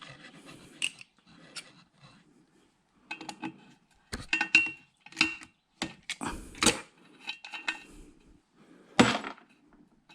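Metal parts and hand tools clinking and knocking as an RF amplifier is dismantled by hand for scrap: irregular clicks and clacks, some with a brief metallic ring, with two sharper knocks about two thirds of the way in and near the end.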